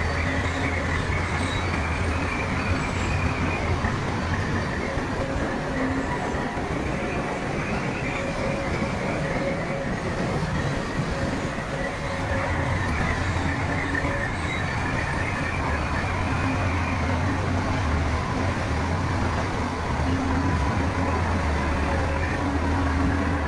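Shantui crawler bulldozer working: its diesel engine drones steadily while the steel tracks squeal and grind, the squeal swelling and fading every few seconds.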